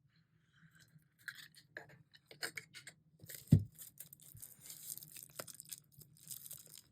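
Handling and opening a CD album package: crinkling, rustling and small clicks of packaging, growing busier after about three seconds, with one sharp knock about three and a half seconds in.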